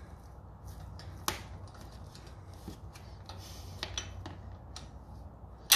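Gloved fingers unscrewing a riding-mower engine's oil drain bolt by hand, making scattered light clicks and rubbing, with a sharper click about a second in and a louder one near the end. A faint low hum runs underneath.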